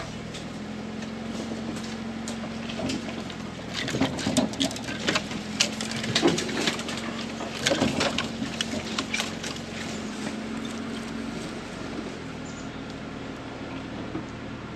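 Jeep engine running steadily at a low crawl, with branches and twigs scraping and snapping against the body from about 4 to 10 seconds in as it squeezes between trees.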